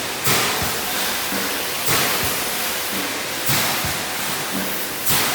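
Automatic wire mesh welding machine (TJK GWCSP2000WL-B) running through its cycle: a surge of hiss about every one and a half seconds, four times, with low knocks, over a constant noisy machine hum.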